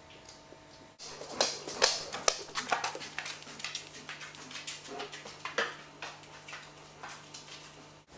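German Shepherd's claws clicking and tapping irregularly on a laminate kitchen floor as it walks about.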